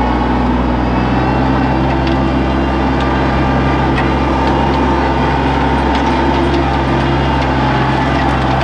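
Compact tractor's engine running steadily as the tractor drives slowly with a loader-carried load of boards, with a few light clicks over it.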